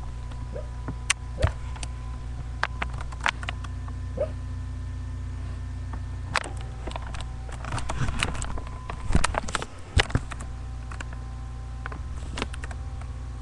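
A sleeping dog making short, muffled yips and soft noises every few seconds, over a steady low hum.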